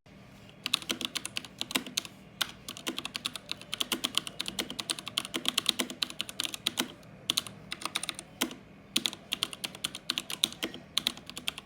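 Typing on an iMice GK-100 wired mechanical keyboard: a rapid, irregular run of key clicks with a couple of brief pauses.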